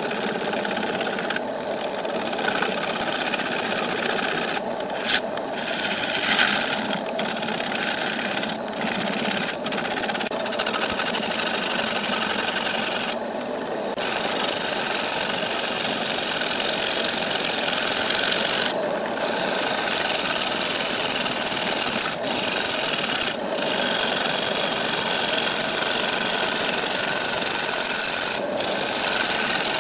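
Turning tool cutting into a large wooden disc spinning on a wood lathe: a steady hissing shave of wood. It drops out briefly several times when the tool lifts off, most clearly for about a second near the middle.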